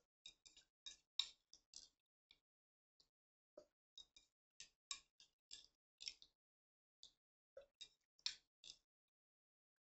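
Close-up eating sounds of spicy instant noodles being chewed and picked up with chopsticks from a bowl: short, irregular clicks, a few each second, with silence between them.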